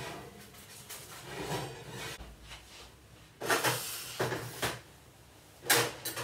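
Oven door opened and shut and a ceramic baking dish lifted out and set down on the kitchen counter: a few clunks and scrapes, the sharpest near the end.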